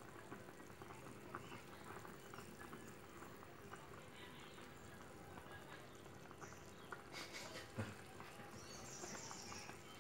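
Thick rendang sauce simmering in a wok, with soft bubbling and popping throughout. A single sharp knock comes about eight seconds in.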